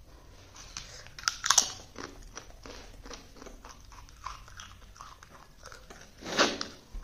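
A person chewing and crunching a mouthful of food close to the microphone, with a string of crisp crunches and mouth clicks, loudest a little over a second in. Near the end comes a brief, louder rush of noise.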